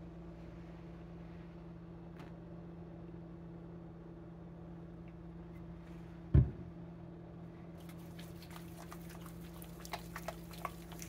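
Hands rubbing body wash into a lather, a faint wet squishing with small clicks that starts about eight seconds in, over a steady low hum. A single thump comes just before, about six seconds in.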